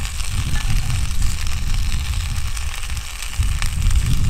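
Wind buffeting the microphone with an uneven low rumble, over the steady sizzle of a whole fish and potato slices frying in oil in a cast iron pan, with faint crackles.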